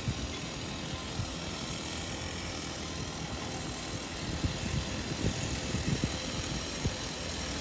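Steady distant engine hum, with a few faint, soft knocks from hands handling the fishing tackle.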